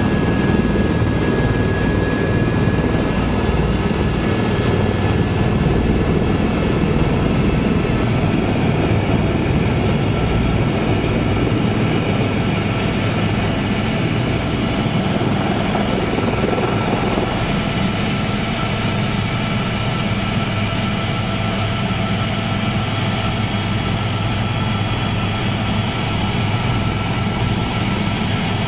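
Helicopter engine and rotor noise heard from inside the cabin: a steady, loud low rumble with a faint high whine on top. The rumble eases a little about two-thirds of the way through.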